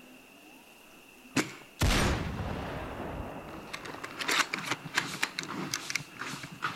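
A sharp click, then a single loud sniper-rifle shot with a long echoing tail. A run of quick sharp cracks and clicks fills the last few seconds.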